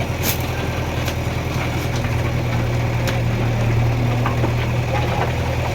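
Diesel engine idling steadily with a low, even hum, with a few sharp clicks over it.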